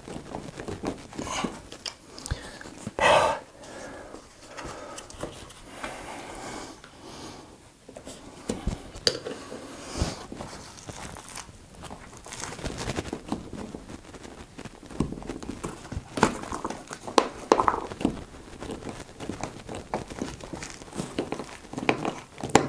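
Scattered clicks, scrapes and rustles of a screwdriver turning and pressing a foot strap screw down through the thick deck pad of an inflatable board, trying to catch the thread of the insert beneath. There are a few louder short bursts, one about three seconds in and a couple past the middle.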